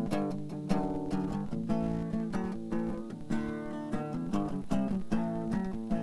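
Acoustic guitar played in a quick run of plucked and strummed chords, the chords changing every second or so.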